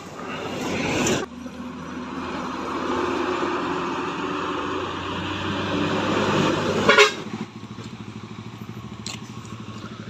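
Large buses driving past close on a tight bend, their diesel engines and tyres loud in the first seconds and then running steadily. A short horn blast sounds about seven seconds in, after which the sound drops to a quieter steady road background.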